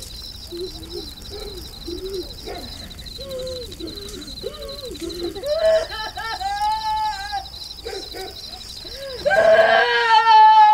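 A woman's short moaning cries that grow into longer wails and end in a loud, long scream near the end, over a steady high insect trill.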